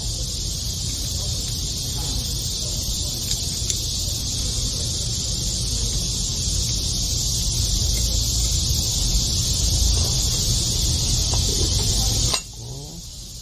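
Steady high-pitched insect-like hiss over a low rumble, both dropping suddenly near the end. There are a few faint light clicks of small parts being handled.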